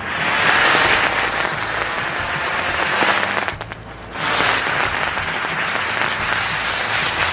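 Sunflower wheel firework burning: a steady, loud fizzing hiss of sparks that dips briefly about halfway through, then carries on.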